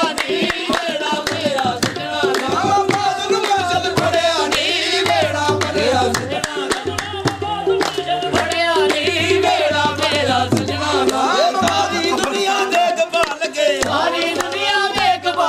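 Qawwali being sung by several voices with wavering, ornamented lines, accompanied by frequent strokes on hand drums of the tabla kind.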